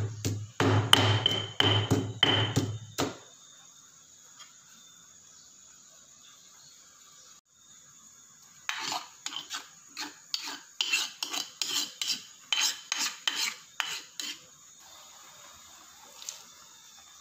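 Pestle pounding garlic and chilies in a stone mortar: heavy thuds, two or three a second, for about three seconds. After a lull, a run of lighter knocks and scrapes in the mortar at roughly two a second.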